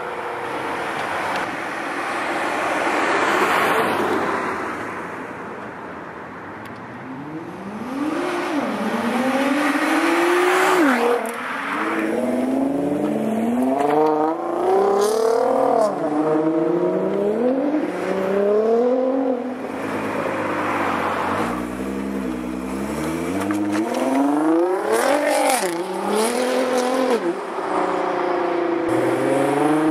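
Sports car engines accelerating hard, the pitch climbing and then dropping sharply again and again as they rev up through gear changes. About three to four seconds in, a car swells past and fades.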